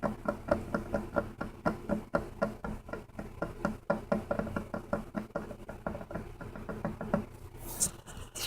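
Rapid, even tapping on a hard object, about four taps a second, for ASMR; the tapping stops about seven seconds in and a short rustle follows near the end.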